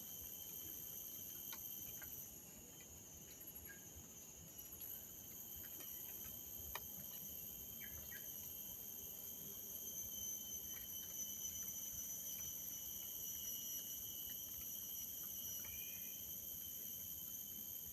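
A forest insect chorus, crickets or similar, giving several steady high-pitched shrilling tones at once, with a few faint scattered clicks and short chirps.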